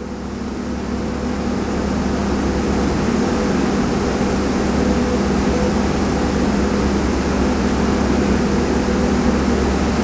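Steady mechanical drone of running machinery: a constant low hum with a few fixed tones under an even hiss. It fades in over the first two seconds.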